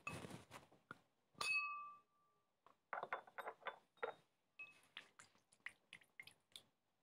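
Liquid poured from a glass into a glass mixing bowl, then one ringing clink of glass on glass about a second and a half in. After that, a run of quick clinks and taps as a silicone spatula stirs the batter against the bowl.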